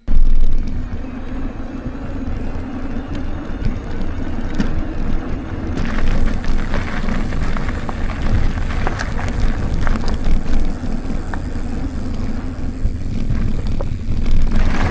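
Mountain bike riding over a rough trail at speed: steady wind buffeting on the microphone, with tyre rumble and scattered clicks and rattles.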